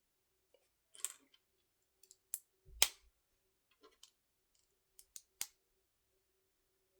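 Lego bricks clicking as plastic pieces are handled and pressed together: a scatter of sharp clicks, the loudest just under three seconds in with a dull knock, and a quick cluster of three about five seconds in.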